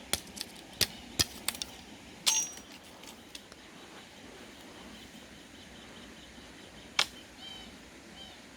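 Several sharp clicks and snaps, four in the first couple of seconds, a louder one just after and another about seven seconds in, over a faint steady outdoor background. Short, faint, high bird chirps come near the end.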